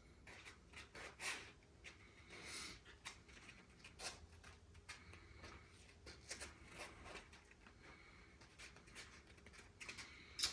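Faint, scattered rubbing, scraping and light tapping from sandpaper being pressed onto and worked around sanding blocks, barely above near silence.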